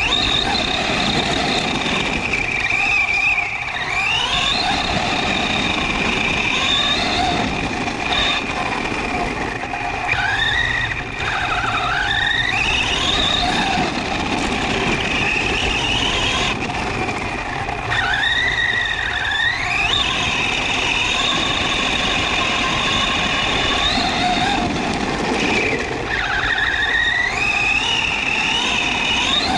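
Kyosho Mad Van 4WD RC truck's 2S brushless motor and drivetrain whining, the pitch sweeping up about four times as it accelerates. Its tyres crunch and spray on loose gravel, heard from a camera mounted on the truck.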